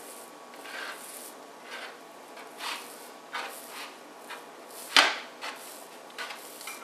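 Hands rolling a sheet of croissant dough in a metal baking pan, with soft rubbing and rustling a few times, and one sharp knock about five seconds in.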